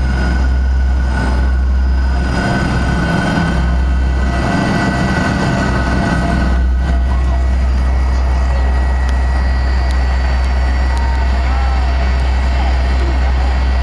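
Cabin sound of a Fokker 100's rear-mounted Rolls-Royce Tay turbofans running steadily on the ground, a deep rumble under several constant whining tones.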